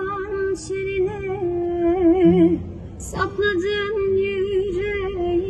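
A singer holding long, wavering, ornamented notes over background music, with no clear words. The voice breaks off briefly about two and a half seconds in, then carries on.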